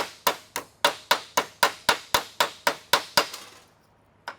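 Hammer blows flattening the lip of a scrap piece of sheet metal, about four strikes a second. The blows stop about three and a half seconds in, and one more lands near the end.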